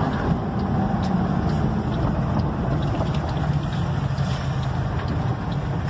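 Steady engine drone and road noise inside a moving truck's cab, heard while driving down a mountain road.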